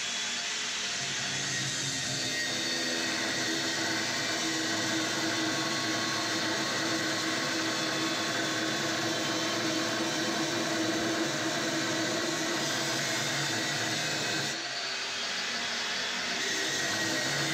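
Angle grinder grinding 10 mm steel engine beds: a steady motor whine with grinding noise from disc on metal. It eases off briefly near the end, then picks up again.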